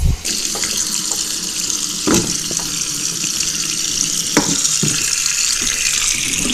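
Kitchen faucet turned on and running a steady stream of water into a stainless steel sink and down the disposal drain. A few light knocks come through the running water as carrots are dropped into the drain; the disposal itself is not running.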